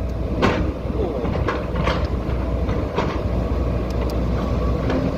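Diesel engine of a Kobelco SK140 excavator running steadily, with several sharp metallic clanks from the working machine.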